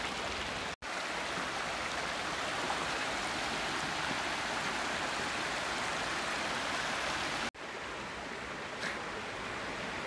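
Shallow creek running over rocks: a steady rushing of water, broken twice by brief cuts, about a second in and again near the end, and a little quieter after the second.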